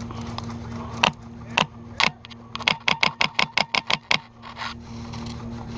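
Airsoft rifle firing: three single shots about half a second apart, then a quick string of about ten shots at roughly seven a second.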